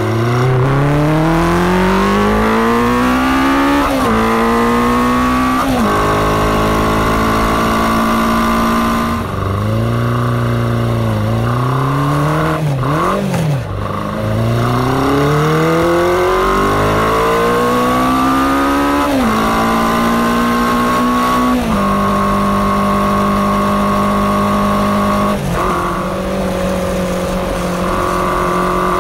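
1979 Honda CB400F motorcycle engine on the move. It accelerates through the gears, its pitch climbing and then falling back at each upshift. It holds a steady cruise, slows with a few downshifts in the middle, then pulls up through the gears again to a steady cruise.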